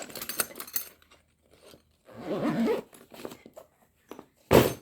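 Hand tools and tool bags being handled: light clinks and rustling, then one loud thump near the end as something is set down.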